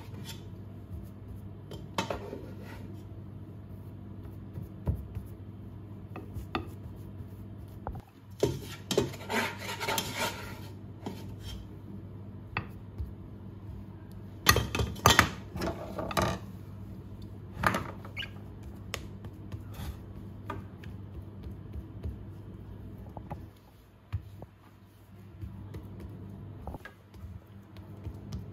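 Silicone spatula spreading and smoothing mashed potato in a glass baking dish: soft scraping and small knocks against the glass, bunched in two busy spells about a third and just over halfway through. A steady low hum runs underneath.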